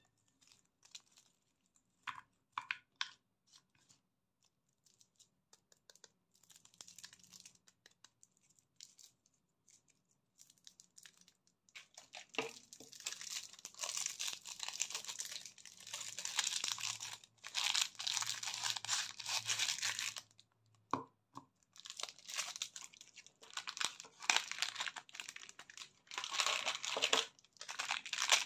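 Candy wrappers, among them a Chupa Chups lollipop's wrapper, crinkling and tearing as they are unwrapped by hand. A few soft crackles at first and a mostly quiet stretch, then from about halfway through long runs of dense crinkling with a short break.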